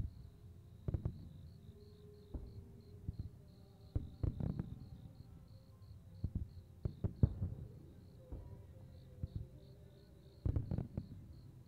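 Aerial firework shells bursting in an irregular series of booms and thuds, the loudest a little past halfway. Insects chirp steadily underneath in a fast pulsing rhythm.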